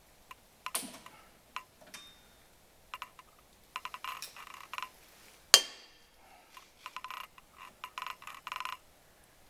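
Metal tools and brake parts clicking and clattering in short runs, with one sharp metallic clank that rings on briefly about halfway through.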